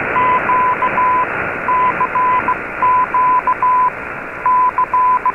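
Morse code sent as a steady high beep in dashes and dots, spelling out the "CQ DX" call, over a constant bed of shortwave hiss and static. It is Radio Havana Cuba's broadcast on 15140 kHz, heard through an Icom IC-R8600 receiver in AM, with the narrow, muffled sound of shortwave reception.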